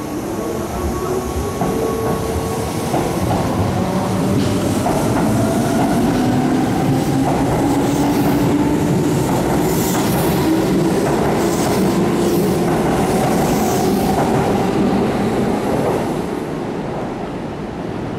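Keihan 2600-series electric train pulling away from a station stop and accelerating past: its traction motors give a whine that climbs steadily in pitch over rolling wheel-on-rail noise. It grows louder as the cars go by and fades near the end as the last car leaves.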